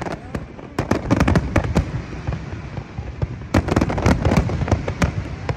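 Fireworks going off in quick succession: a dense run of sharp cracks and bangs, with heavier flurries about a second in and again around three and a half seconds in.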